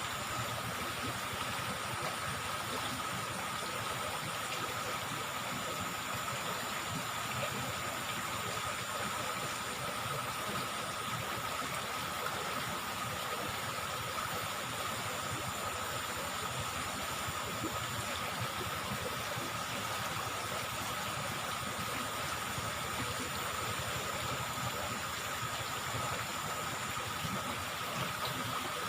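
Steady rush of flowing river water, with a thin steady high tone under it.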